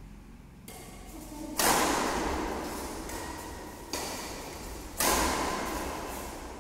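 Badminton racquets striking the shuttlecock three times in a rally. Each sharp hit is followed by a long fading echo from the hall. The first and last hits are the loudest, and a lighter hit comes between them.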